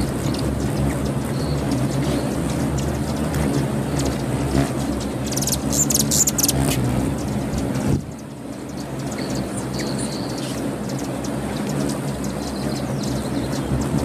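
The wings of a crowd of hummingbirds hovering at feeders make a steady low hum. High, sharp chirps from the birds come in a cluster about halfway through, and the sound drops briefly a little later.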